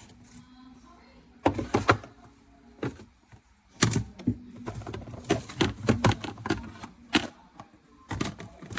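Hard plastic fridge organizer bins and lids knocking and clattering as they are handled, in a string of irregular knocks, some in quick clusters.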